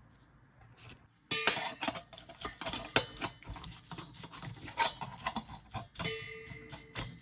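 Quick clicks and clatter of small hard parts being handled and knocked together, starting after about a second of quiet, with a brief ringing tone about six seconds in.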